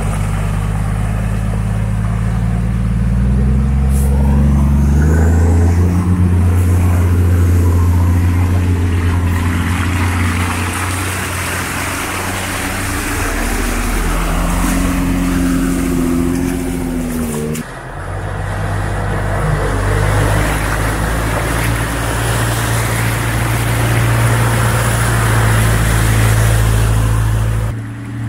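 Off-road 4x4 engines pulling through deep water at low speed, with water splashing around the tyres. The engine note rises a few seconds in, and the sound breaks off suddenly about two-thirds of the way through before carrying on.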